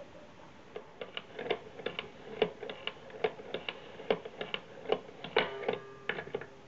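Hand-cranked wooden automaton mechanism clicking and tapping irregularly, a few times a second, as the handle is turned and the hunter figure's gun is indexed round. A louder click about five and a half seconds in is followed by a faint ringing.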